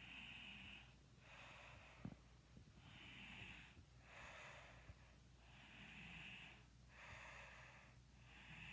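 A sleeping person snoring faintly, with noisy, hissing breaths in and out in a steady rhythm, about one every second and a half. A small click about two seconds in.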